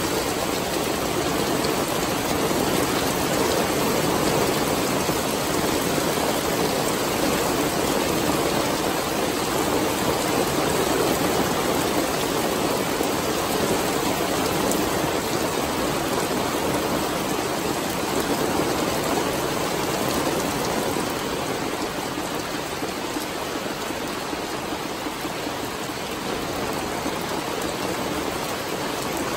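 Steady heavy rain pouring down during a summer thunderstorm, easing slightly about two-thirds of the way through.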